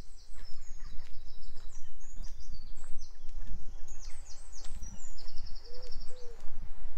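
Several songbirds singing high, quick trills and whistled phrases over the walker's footsteps, with two short low calls near the end.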